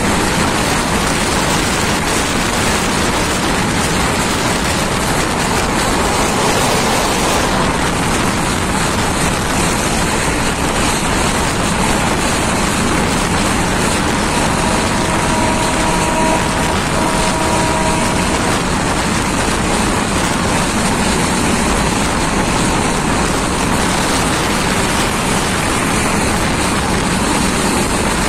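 Steady loud rushing noise of a moving passenger train, heard from the open side of a coach: wind on the microphone over the running of the wheels on the track. About halfway through, a two-tone horn sounds twice, with a short break between the blasts.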